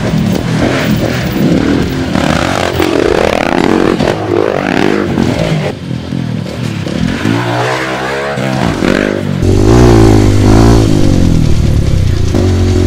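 Dirt bike engines revving as the bikes ride a rough track, the pitch rising and falling over and over with the throttle. About three-quarters of the way in the engine sound gets louder and deeper.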